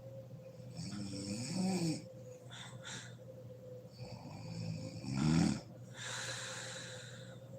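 A sleeping woman snoring: a pitched, rattly snore about a second in and a louder one about five seconds in, each followed by a long breathy rush of air. A faint steady hum runs underneath.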